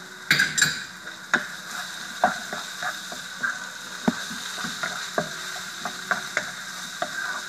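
Meat and spices frying in oil in a pan with a steady sizzle, while a spoon stirs the mixture, scraping and knocking sharply against the pan at irregular moments.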